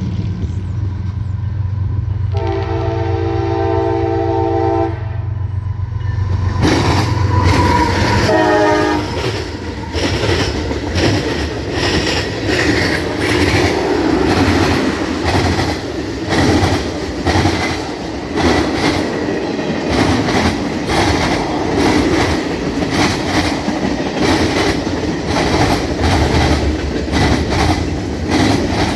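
Diesel freight locomotive approaching with a steady low engine drone, sounding its multi-note horn in one long blast and then a short one as it arrives. Then the train passes close by, its wheels clattering rapidly over the rail joints of a jointed diamond crossing.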